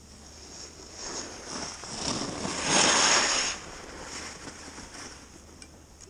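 Skis scraping and skidding over hard-packed groomed snow. The scrape builds through a turn, is loudest about three seconds in, and cuts off sharply, then eases into a softer hiss of skis gliding.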